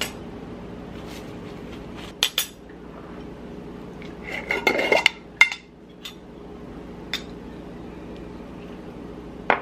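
Kitchen clinks of a knife and spoon against a ceramic bowl and a glass peanut butter jar, a few sharp knocks spread through. Around four to five seconds in comes a denser run of scraping and clicks as the jar's screw lid is twisted, all over a steady low hum.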